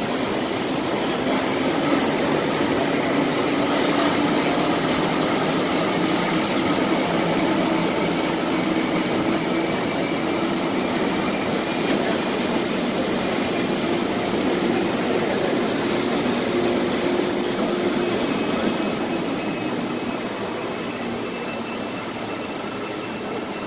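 Diesel engines of large Claas tractors running steadily as they drive across a stage, a continuous rumble with a faint drifting engine note.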